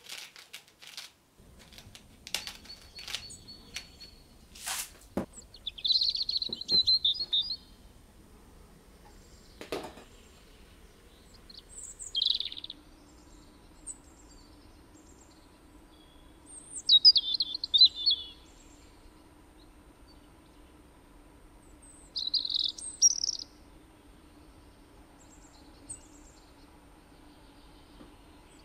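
Bird song sound effect: short bursts of high chirping recur every four to five seconds. In the first ten seconds there are a few sharp clicks and knocks of kitchen handling, and a faint steady hum begins about halfway through.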